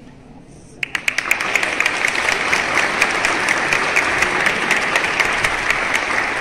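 A group of people applauding. Many hands clapping break out together about a second in and keep up steadily.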